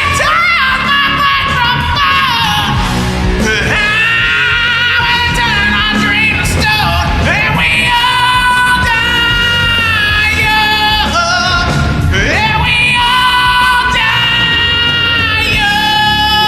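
Hard rock song: a male lead singer holds long, high notes with vibrato, sliding up into several of them, over a full band of electric guitars, bass and drums.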